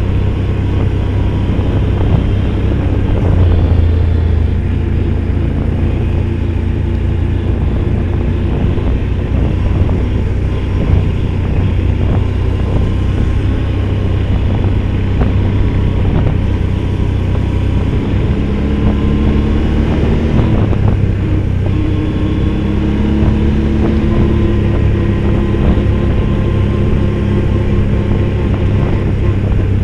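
Off-road vehicle's engine running steadily while driving along a rough dirt track, its pitch rising and falling a little from about halfway through, with frequent knocks and rattles from the bumps.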